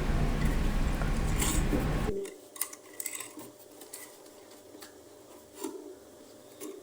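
A steady background noise cuts off abruptly about two seconds in. After that come a few faint clicks and rubbing sounds of small plastic things being handled.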